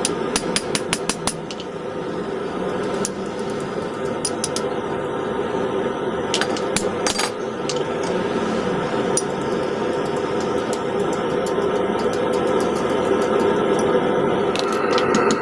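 Hand-hammer blows on hot steel at the anvil, driving a cutter through the bar to split the claw of a claw hammer. A quick run of sharp metallic strikes comes in the first second or so, then scattered single strikes, over a steady background noise.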